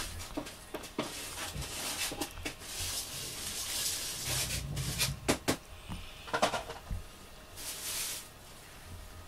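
Soft rustling of a cat's fur with scattered small clicks as it squirms on its back on a carpet. About eight seconds in comes a short brushing hiss as a hand strokes its fur.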